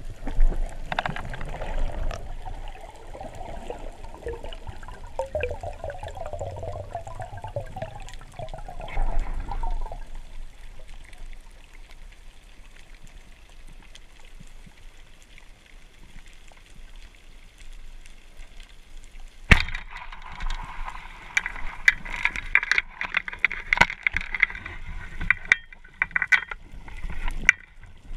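Underwater sound through a camera's waterproof housing during a spearfishing dive: muffled water gurgling and sloshing, quieter in the middle. About two-thirds of the way through a sharp click is followed by louder crackling water noise with many small clicks.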